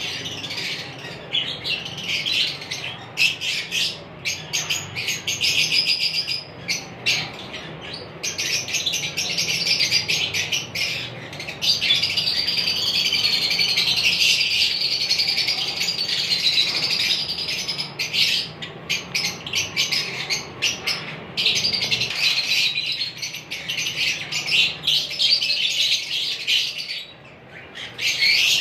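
Lovebirds chattering, a dense stream of shrill, rapid chirps and squawks that barely pauses, easing off briefly near the end.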